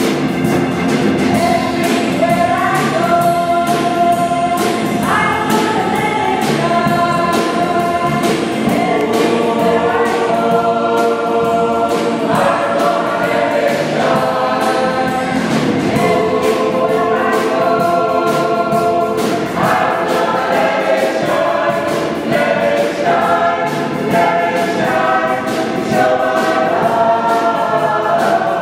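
Mixed choir of men and women singing together in parts, with a steady beat of accompaniment underneath.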